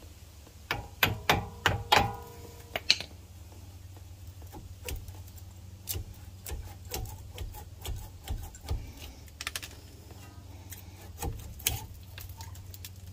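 A small hammer strikes a rusted brake caliper about six times in quick succession in the first few seconds, sharp metallic knocks with a ring, to free it from the rotor. Lighter knocks and clinks follow as the caliper is rocked and worked loose by hand.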